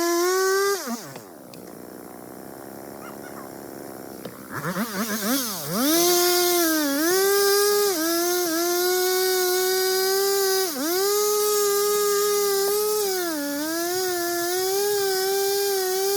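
Two-stroke chainsaw at full throttle. It drops to idle about a second in, revs back up unevenly around four and a half seconds, then runs at high revs with repeated brief dips in pitch as it bogs under load in the cut.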